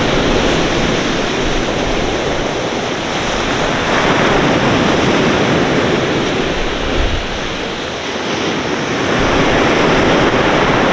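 Surf from a rough sea breaking and washing over a pebble beach: a steady rushing that swells and eases slowly.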